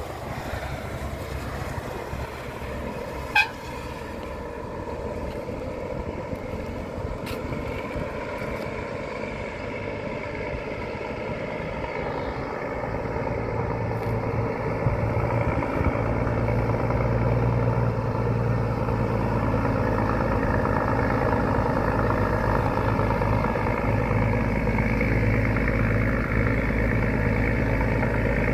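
Scania Highline semi-truck's diesel engine running at low speed as the truck approaches, growing louder from about halfway through as it comes close. A single very short, sharp high-pitched chirp sounds about three seconds in.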